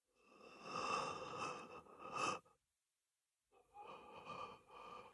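Labored breathing of a badly wounded man, voiced for an anime: a long breath ending in a sharper intake about two seconds in, a second of silence, then more breathing.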